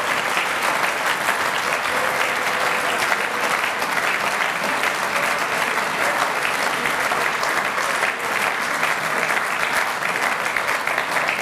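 A large audience of a few hundred clapping steadily, dense and sustained applause.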